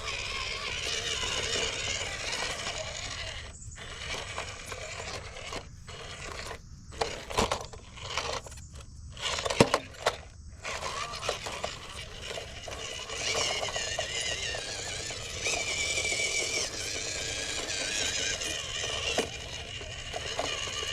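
Small RC truck's brushed 370 electric motor and single-speed gearbox whining as it drives, the pitch wavering with throttle, along with tyre scraping. In the middle the sound cuts out briefly several times and there are a few sharp knocks.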